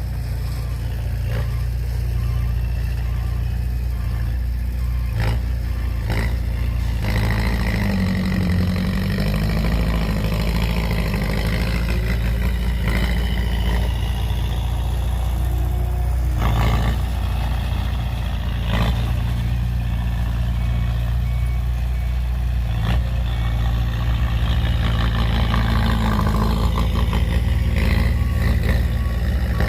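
Heavy diesel machinery running steadily, with occasional sharp knocks and clanks. A vehicle reversing beeper sounds for the first few seconds and again near the end.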